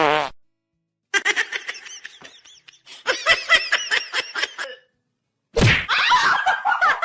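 Laughter in quick, chopped bursts for a few seconds, between short gaps of silence.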